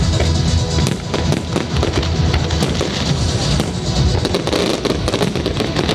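Fireworks display: many sharp cracks and crackles from bursting shells, growing denser about halfway through, over music with a heavy bass.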